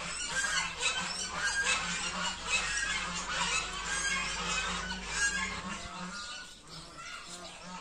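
Birds calling outdoors: many short calls overlapping, thinning out after about five seconds. Under them is a low steady hum that stops about six seconds in.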